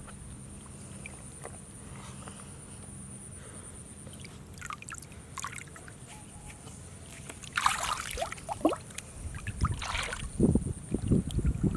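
Water splashing and sloshing in irregular strokes, with one loud splash a little past the middle and heavier, deeper sloshes near the end.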